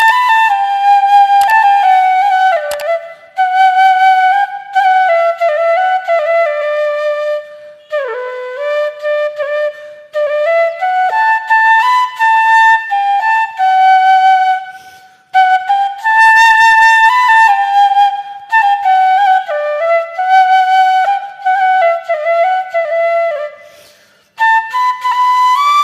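Background music: a single solo melody played in phrases a few seconds long, with short breaks between them.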